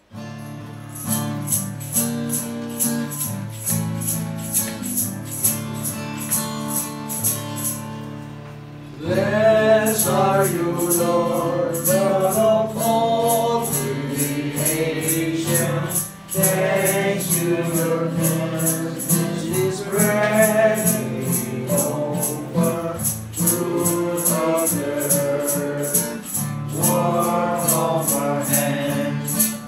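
Acoustic guitar playing a chord intro, joined about nine seconds in by a group of voices singing a worship song together, with a steady high rattle keeping the beat.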